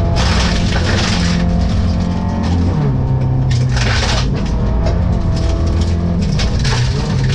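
Rally car engine at full effort on a gravel stage, heard from inside the cabin, its note dropping about three seconds in and climbing again through the gears. Gravel and stones clatter against the underbody throughout.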